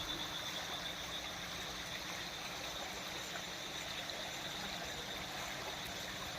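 Rainwater running and trickling steadily.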